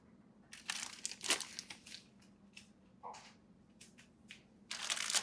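Clear plastic packaging bags crinkling as accessories are handled in and out of them, in irregular rustles with a few short crackles and the loudest crinkling near the end.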